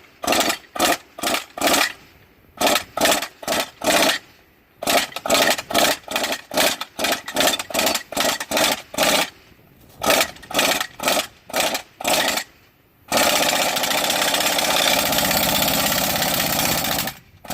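Large impact wrench driving a ground anchor into the soil through an anchor-cranker socket. It hammers in short bursts about three times a second, in runs with brief pauses, then runs continuously for about four seconds near the end.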